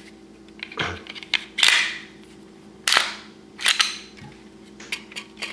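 Glock 19 Gen 4 polymer-framed pistol being reassembled: its slide is fitted back onto the frame and worked by hand, giving a series of sharp metal-on-polymer clicks and clacks, about half a dozen, the two loudest a little over a second apart.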